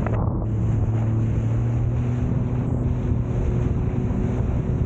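Jet ski engine running at a steady speed while riding over the water, with wind buffeting the microphone.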